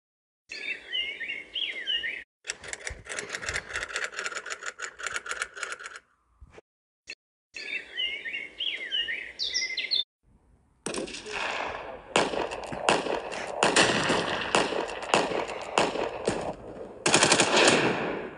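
Birds chirping, then a few seconds of rapid automatic gunfire. After a short break the same birdsong returns, followed by a longer stretch of automatic gunfire in the second half.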